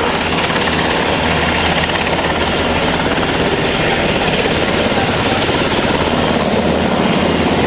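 Sikorsky UH-60 Black Hawk helicopter flying past low and close, its rotor beat and twin turboshaft engines loud and steady.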